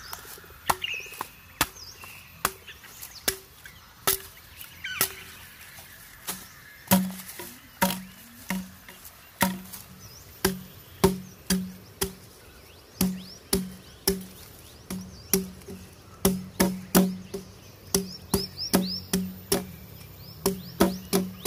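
Repeated blows of a tool on wood, each a sharp knock with a short hollow ring. They come about once a second at first and quicken to two or more a second. Birds chirp in the background, most clearly at the start and near the end.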